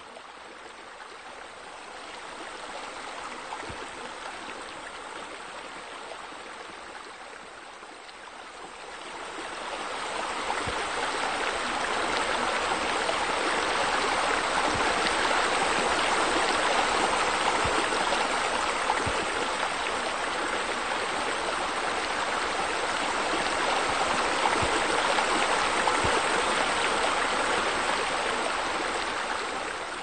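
Water pouring and splashing into a pool from a pool waterfall, a steady rushing that grows louder about nine seconds in.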